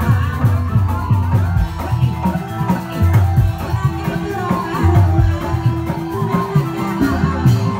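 Reog Indramayu percussion ensemble playing the dance accompaniment: deep drums beating in a driving rhythm, a long held tone entering about two seconds in, and a wavering melody line above.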